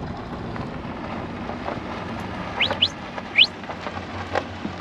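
Steady vehicle running noise with a low hum. A little past the middle come three short, high, rising squeaks in quick succession.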